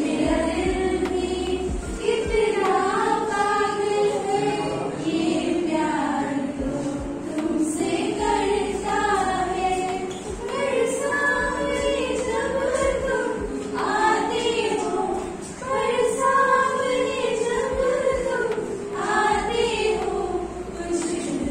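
A small group of young women singing a song together, in sung phrases with short breaths between them.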